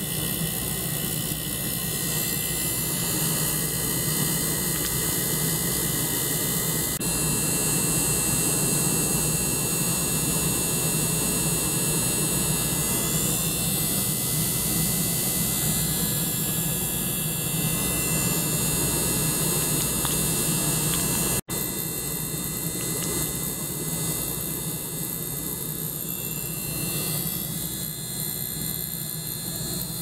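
Steady hum and hiss of a benchtop ultrasonic cleaner running, with a small pump circulating water through its hoses. The sound cuts out for an instant about two-thirds of the way through.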